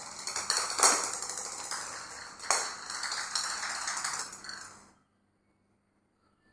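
Small plastic cat-toy ball rolling and rattling across a hard polished stone floor as a cat bats it, with two sharper knocks about one and two and a half seconds in. It stops about five seconds in.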